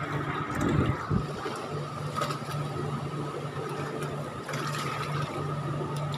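Boat engine running steadily: a low hum with a steady higher whine above it. A couple of low knocks about a second in.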